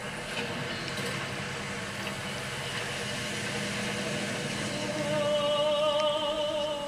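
Fishing boat's engine running steadily. About five seconds in, a voice begins a long sung note with vibrato over it.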